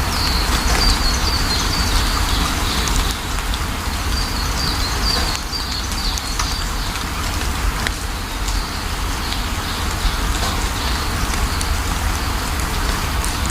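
Steady rain falling over a deep low rumble, with a bird chirping in quick runs of short high notes through the first few seconds and again near the end.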